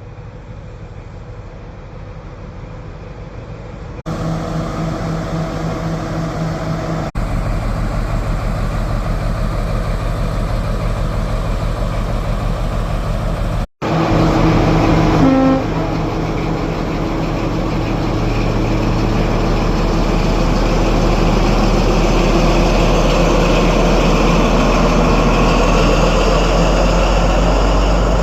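Diesel engines of Class 43 HST power cars running steadily, with the train noise building over the last ten seconds or so. A brief horn toot sounds about fifteen seconds in.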